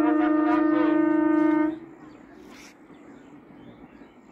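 Electric local train's horn sounding one long, steady blast that cuts off about two seconds in, followed by faint background.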